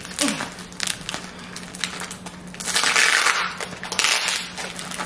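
Plastic packaging rustling as a new pillow is pulled out of its wrapping, loudest for about a second near the middle.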